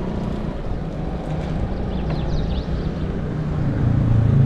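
A motor vehicle engine running with a low steady drone, getting louder near the end. A few faint high chirps about two seconds in.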